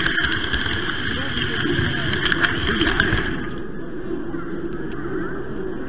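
Running noise of a model train carrying an onboard camera as it rolls along the layout's track, a steady whir over the murmur of voices in an exhibition hall. A higher hiss in the sound stops about three seconds in.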